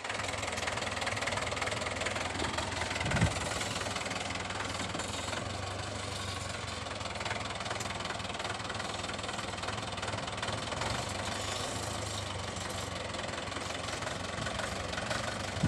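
Tractor engine running steadily with a low knocking drone, heard from aboard the tractor. A single thump about three seconds in.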